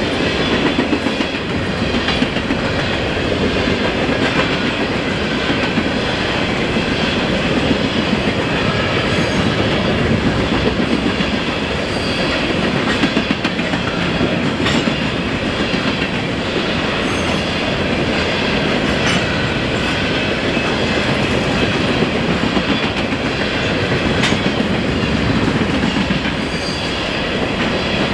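An empty grain train's covered hopper cars rolling past close by: a steady rumble of wheels on rail with clickety-clack over the joints.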